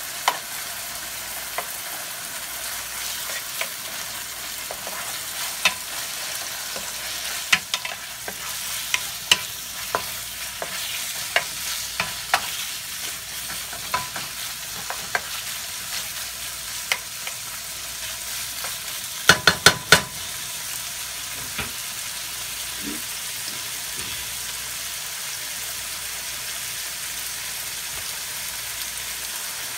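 Chicken pieces and garlic sizzling steadily in a nonstick frying pan while being stirred with a wooden spatula, with scattered clicks and scrapes of the spatula against the pan. About two-thirds through comes a quick run of four sharp knocks, then only the steady sizzle.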